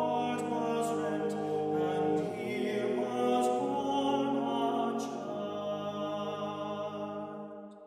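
Background music of slow, sustained chords that shift a few times, fading out near the end.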